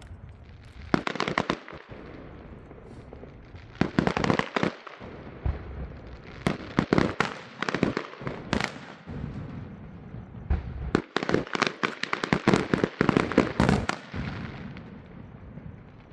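Fireworks going off in quick volleys of sharp bangs and crackles, four bursts of reports with the longest and densest run near the end, then dying away into a low rumble.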